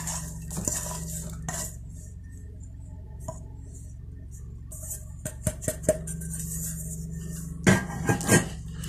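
Stainless steel bowl and metal spoon scraping and clinking as chopped red onions are tipped into pancake batter, with a few sharp clinks about five seconds in and a cluster of louder knocks near the end.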